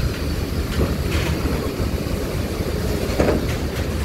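Coach bus's diesel engine running with a steady low rumble as it rolls slowly onto a ferry's steel loading ramp. Metal clanks from the ramp under the wheels about a second in and again after three seconds.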